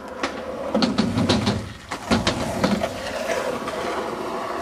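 Skateboard wheels rolling on concrete: a steady rumble with scattered sharp clicks and knocks of boards.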